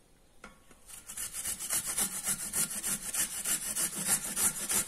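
Peeled carrot grated on a flat stainless-steel hand grater: quick, even scraping strokes, several a second, starting about a second in.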